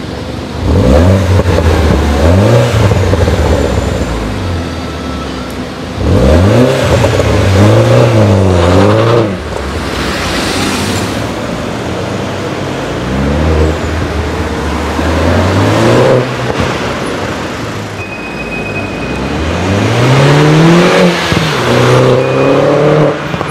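Mini John Cooper Works Coupé's 1.6-litre turbocharged four-cylinder accelerating hard four times. Each run is an engine note that climbs, drops back at an upshift and climbs again.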